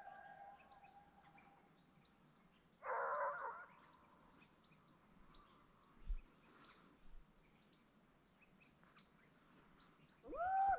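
Steady high-pitched drone of insects in the grass. A short harsh call cuts in about three seconds in, and near the end comes a distant animal call that rises and then holds one pitch.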